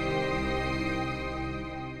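Instrumental music with long held notes, beginning to fade out near the end.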